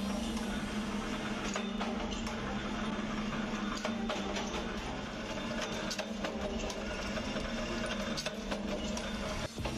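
Power punch press running with a steady motor hum, its ram stamping through a sheet of old tyre rubber in irregular sharp strokes, about one every second or so, cutting out motorcycle drum rubber pieces.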